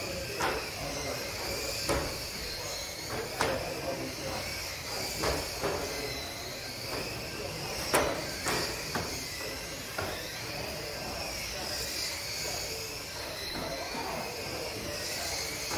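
Several small model racing cars running at once, their electric motors making a high whine that rises and falls as they speed up and slow down, with scattered sharp knocks.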